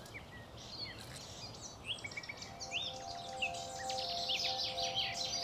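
Many songbirds singing at once in overlapping chirps and short rising notes, growing denser as it goes on. About halfway in, a few low held music notes come in underneath.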